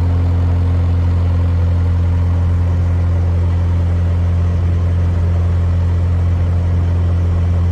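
Narrowboat's diesel engine running steadily at cruising speed, a constant low hum with no change in pitch.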